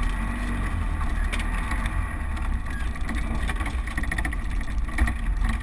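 Land Rover Defender driving slowly along a rough track, heard from inside the cab: a steady low engine and drivetrain rumble with a few short knocks and rattles over the bumps.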